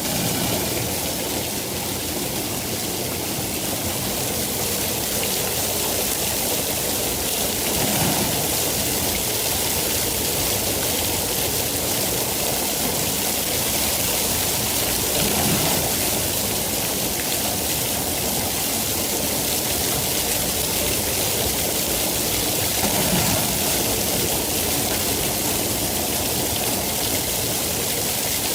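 Steady rain falling as a dense, even hiss. Three brief low swells come about every seven to eight seconds.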